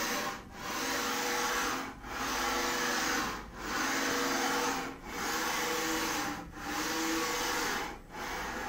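Home-built epoxy granite CNC mill's table rapid-traversing at maximum speed, about 15 metres per minute, driven through ball screws by Delta servo motors. A steady whirring whine runs through each move and drops out briefly at each reversal, about every one and a half seconds.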